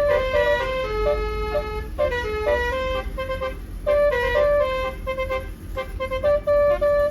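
A bus's Basuri telolet horn playing a melody of short stepped notes, with a steady low rumble underneath.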